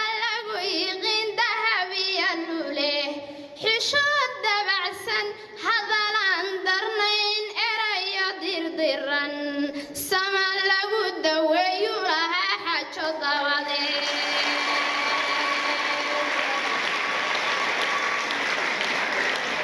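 A girl's voice chanting a Somali poem into a microphone in sung, rising and falling lines. About fourteen seconds in the chanting stops and applause takes over, with a steady high tone held within it for a few seconds.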